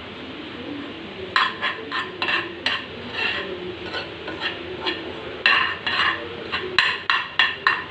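A utensil stirring and scraping against the pan of gur-and-ghee syrup simmering over low heat, in short irregular strokes that start about a second in and come quickly near the end.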